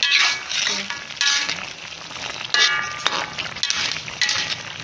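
A spoon stirring chicken and shiitake mushrooms through a bubbling soy-sauce braise in a metal pan, scraping the pan in several short strokes over a steady sizzle.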